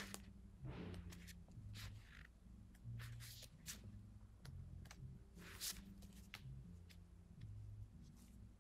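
Faint paper handling: scattered soft rustles and small clicks, about a dozen short ones, as reading pages are shifted or turned, over a low steady room hum.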